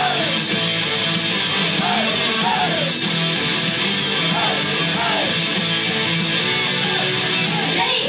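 Loud pop-rock song with electric guitar, played through a live venue's sound system.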